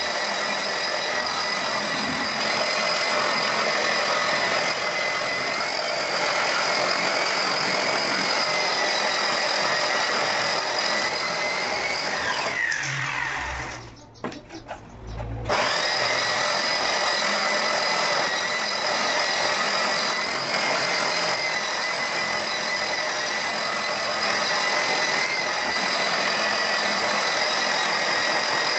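Electric hand sander with a round pad running against a cement floor surface, a steady motor whine over grinding noise. About halfway through it is switched off and its whine falls as it winds down, there is a short quiet gap with a few low knocks, and then it starts again abruptly.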